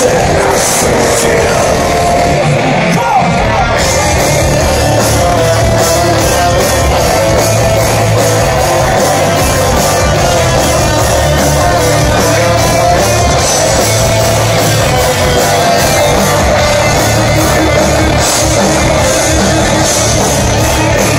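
Live industrial gothic metal band playing loud through a festival PA: distorted electric guitars and synths over a steady drumbeat.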